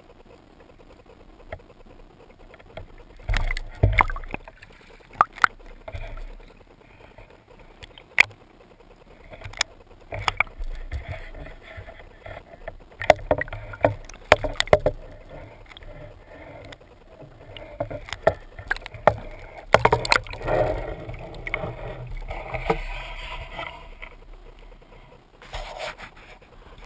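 Handling noise from a waterproof camera underwater and at the surface: irregular sharp knocks and clicks with bursts of rushing water.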